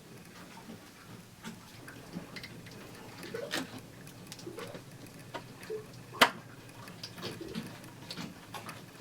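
Scattered small clicks and knocks of hands working on wiring and fittings, with one sharp click about six seconds in.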